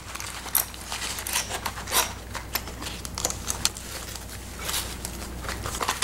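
Metal hand tools (small adjustable wrench, service wrench, reamer, torch tips) being slid into a fabric magazine pouch: scattered light clicks and clinks with fabric rustling.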